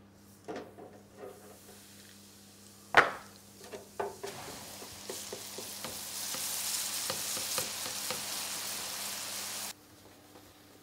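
A few light knocks and one sharp knock about three seconds in, then floured onions frying in a deep fat fryer: hot oil sizzling and bubbling in a steady hiss that grows louder and cuts off suddenly near the end.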